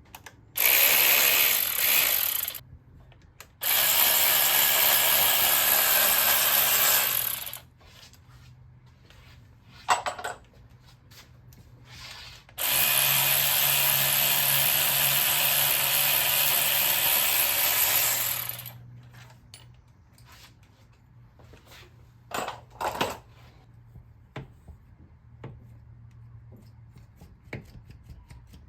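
Hand-held power tool running in three long steady bursts, spinning bolts out of the engine's accessory mount. Short metallic clicks and knocks follow between and after the runs.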